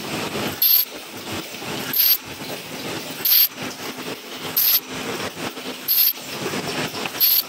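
Paper cup machine and double-wall sleeve machine running: a steady mechanical clatter and hum, broken by a short, sharp burst of high hiss about every second and a third, six in all.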